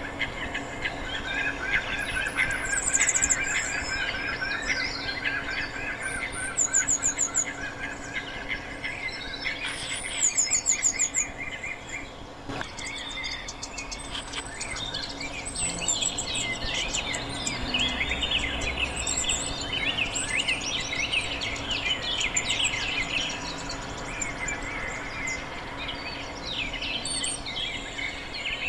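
Marsh bird chorus: many birds chirping and calling over each other, with three bursts of rapid, very high-pitched trilling about 3, 7 and 10 seconds in.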